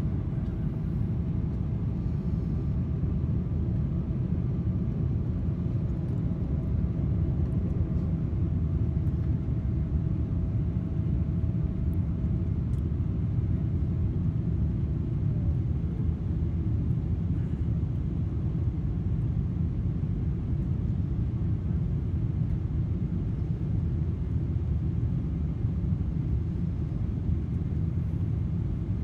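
Steady low rumble inside the cabin of a Boeing 777-300ER, airflow and GE90 engine noise on the approach to landing. A faint steady whine fades and drops in pitch about halfway through.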